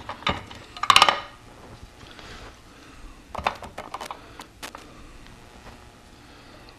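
Metal pliers clinking and scraping against a small soldered sheet-metal tank as it is gripped to squeeze its flared ends. A quick cluster of clinks about a second in is the loudest, with a few more sharp clicks between three and a half and four and a half seconds.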